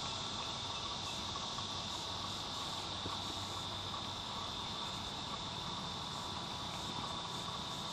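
Steady high-pitched buzzing of insects, a continuous background insect chorus with no breaks.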